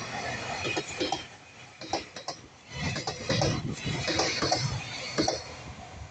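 Freight wagons' wheels clacking over rail joints and the level crossing at slow speed: a run of irregular knocks, heavier from about three seconds in.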